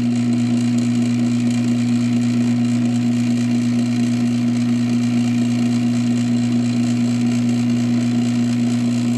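LiftMaster 1245 garage door opener motor running with a steady hum, not stopping even when the wall button is pressed. It runs non-stop whenever it is plugged in, a fault the owner puts down to a faulty logic board.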